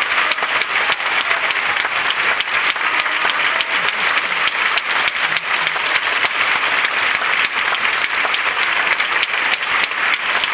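A large theatre audience applauding steadily, with dense, sustained clapping.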